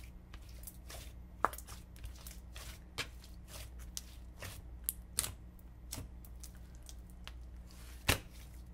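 Thick, pearly pink glitter slime being pressed, poked and stretched by hand, giving scattered soft crackles and little sharp pops, the loudest about a second and a half in and near the end.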